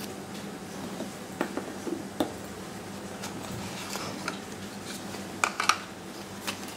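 Handling noise from a smartphone and its cardboard box on a table: scattered light clicks and taps, a soft rustle of paper as a leaflet is lifted from the box, and a close pair of sharper clicks near the end, over a steady low hum.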